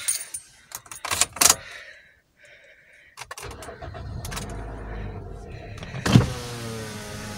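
A few clicks and knocks in a car cabin, then a Toyota car's engine starting about three seconds in and settling into a steady low idle, with a brief louder moment about six seconds in.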